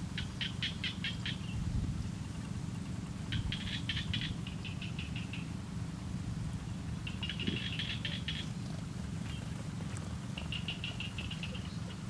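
A small bird calling in four bursts of rapid, high chirps, each burst one to two seconds long, over a steady low rumble.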